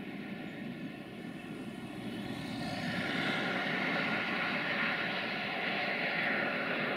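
Distant freight train hauled by a 060-DA (LDE2100) diesel locomotive, its Sulzer engine giving a steady drone with the wagons rolling on the rails. About three seconds in a louder rushing noise swells in and holds.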